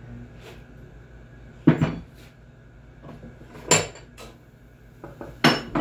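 Metal clanks and knocks from tools and parts being handled during treadmill roller bearing work: separate sharp strikes, the loudest about two seconds in and near four seconds, with a quick cluster near the end.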